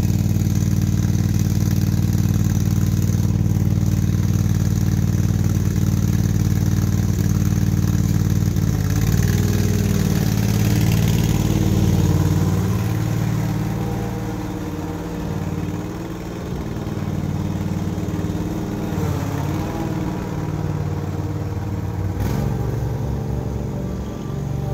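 Riding lawn mower engine running just after a cold start. It holds a steady note for about nine seconds, then its pitch shifts up and down and it grows fainter as the mower is driven away.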